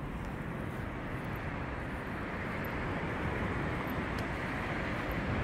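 Steady outdoor ambient noise: a low rumble with hiss and no distinct events.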